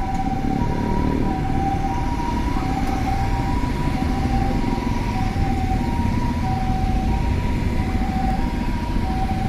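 Japanese ambulance two-tone electronic siren (the "pee-po" hi-lo), switching between a higher and a lower tone about every half second or so, over a steady heavy rumble of the vehicle and road.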